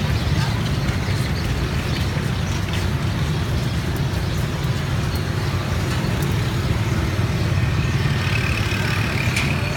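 Steady low rumble of street traffic and engines, with scattered light clicks.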